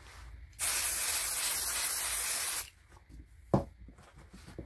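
Aerosol can of temporary spray adhesive hissing in one steady spray of about two seconds. A single short sharp tap comes about a second after it stops.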